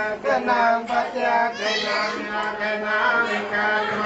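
Ceremonial chanting: a wavering, gliding sung voice over a steady low drone.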